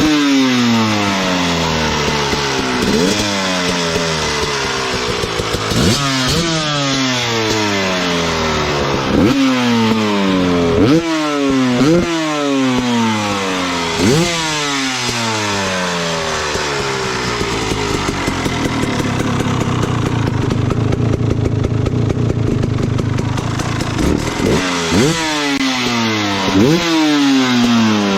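Two-stroke dirt bike engine breathing through an FMF Fatty expansion chamber and Turbine Core II silencer, being sound-tested. The throttle is blipped about seven times, each rev rising sharply and falling back. It then idles steadily for several seconds before two more quick revs near the end.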